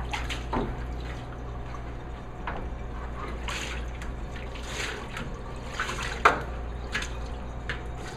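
Rinse water splashing and dripping as a squeegee is pushed across a wet counter, in short irregular strokes over a steady low hum, with one sharper knock a little after six seconds.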